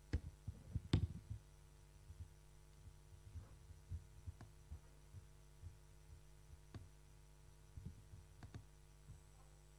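Scattered faint clicks and soft thumps of typing on a laptop keyboard, the loudest cluster about a second in, over a steady low electrical hum.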